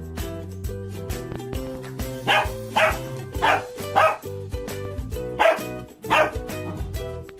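A dog barking six times in three quick pairs over background music.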